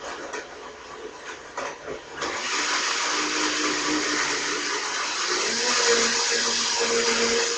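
High-powered blender with a 2-horsepower motor blending frozen fruit and juice: quieter, with scattered knocks, for about two seconds, then it jumps to a loud, steady full-speed whir as the frozen chunks are chopped.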